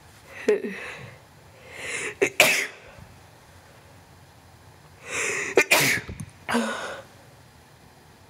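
A man sneezing twice. Each sneeze comes after a swelling, gasping intake of breath: the first about two and a half seconds in, the second about six seconds in. There is a shorter breathy sound near the start and another just after the second sneeze.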